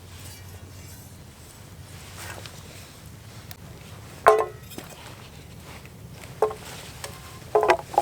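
Metal camp cooking gear clinking: a few sharp, briefly ringing knocks, one about halfway through and a quick cluster near the end, against a low steady background.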